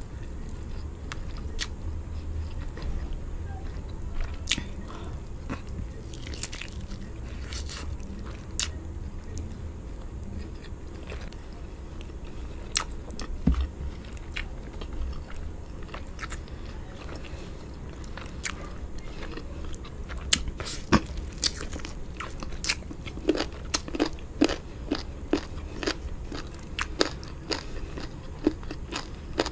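Close-miked chewing and biting of rice with palava sauce and chicken drumstick, eaten by hand, with many sharp wet mouth clicks that come faster and louder in the last third.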